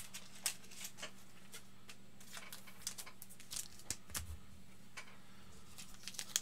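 Trading cards and plastic card holders being handled: faint, irregular light clicks and ticks, a few a second, over a faint steady low hum.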